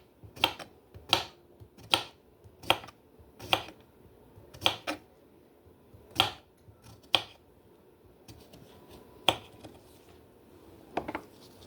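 A kitchen knife striking a cutting board in separate slicing strokes, about one every second, the spacing uneven, with a longer gap near the middle.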